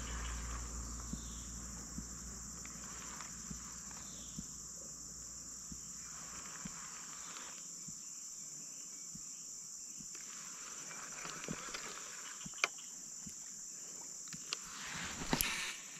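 Steady high-pitched insect drone from the surrounding forest, with a few faint clicks and a short rushing noise near the end.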